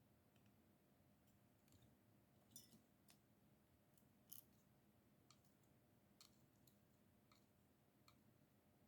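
Near silence with a faint steady hum and scattered faint light clicks from small parts and tools being handled while the radio kit's circuit board is assembled.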